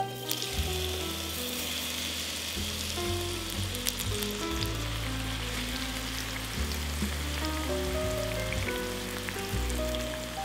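Food sizzling in hot oil in a frying pan: the sizzle sets in abruptly and then runs steadily, with background music underneath.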